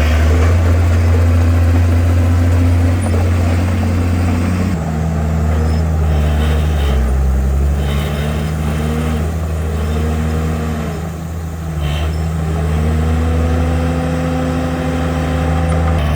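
Komatsu bulldozer's diesel engine running, its note dropping about five seconds in. A higher whine rises and falls several times after that.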